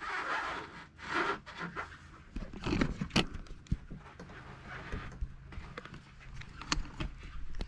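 Copper refrigerant line set being pulled and fed through a hole: irregular scraping and rustling bursts, with a sharp knock about three seconds in and a few lighter clicks.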